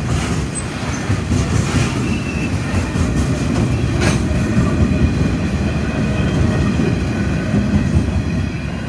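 Freight train's hopper wagons rolling past close by: a steady rumble of steel wheels on the rails, with a faint high wheel squeal from about two seconds in.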